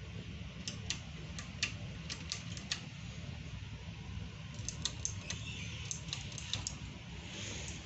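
Armitage II ceiling fan running, a steady low hum, with scattered light irregular clicks over it.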